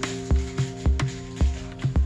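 Background music with a steady drum beat, about two kicks a second, over sustained bass and chord notes.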